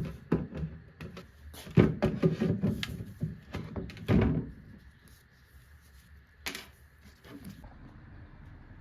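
Irregular knocks and thumps, many in quick succession over the first four seconds or so, then one more sharp knock past the middle.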